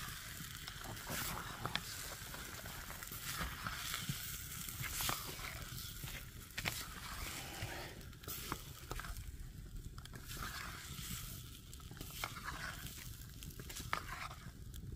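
Potato sabzi frying in a pan: a soft, uneven sizzle with scattered sharp clicks and scrapes of a spoon stirring.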